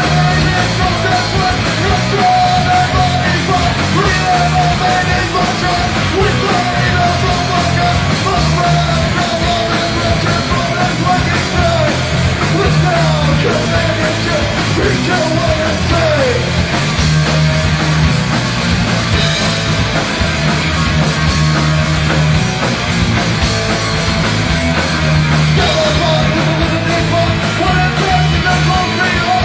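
Live punk rock band playing loud and steady: guitar, bass and drums, with a vocalist yelling into a microphone.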